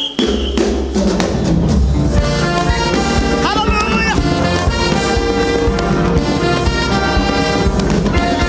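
A live worship band plays an upbeat instrumental passage, with drums and a brass-like lead line; one note bends in pitch about three and a half seconds in.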